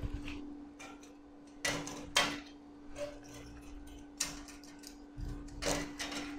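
Small steel parts and hand tools clinking and scraping on a steel work table as they are handled, about five sharp knocks spread through, over a steady hum.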